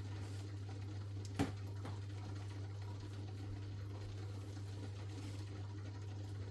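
Aquarium filter running with a steady low hum and a faint wash of moving water, with a sharp click about a second and a half in.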